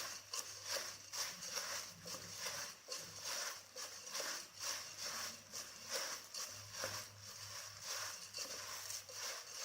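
Puffed rice being tossed and mixed by hand in a bowl: a dry rustling crunch, about three strokes a second.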